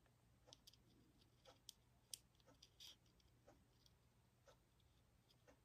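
Near silence, with a scattering of faint, irregular small clicks.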